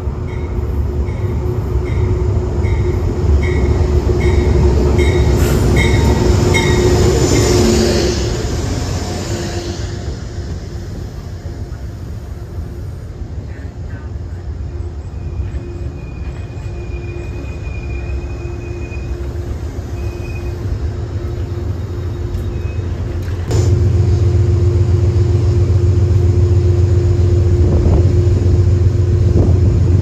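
Metro-North electric multiple-unit train pulling into the station and braking, its motors winding down in a falling whine, with a short high tone repeating about once a second; it then stands at the platform with a steady hum. Near the end, a sudden loud low rumble of wind on the microphone.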